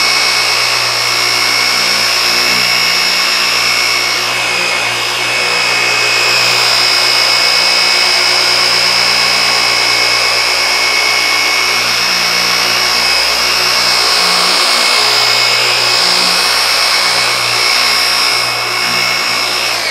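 Griot's Garage dual-action orbital polisher running steadily at speed 4 to 5, working correcting cream into car paint with a foam pad; its low hum wavers as it is moved over the panel. It switches off at the very end.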